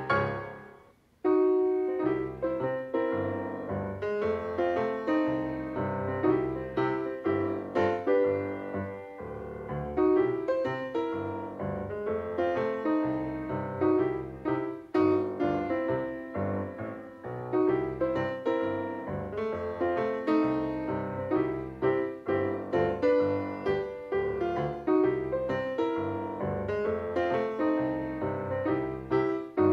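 Piano music playing as a silent-film style accompaniment. It starts about a second in, after a brief pause.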